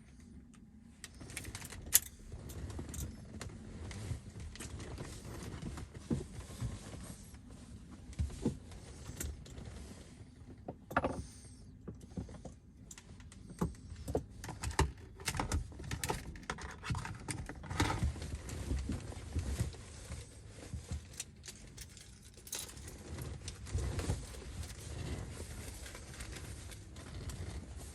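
Irregular clicks, knocks and rattles of hand work with tools and small parts, with one sharp click about 2 seconds in.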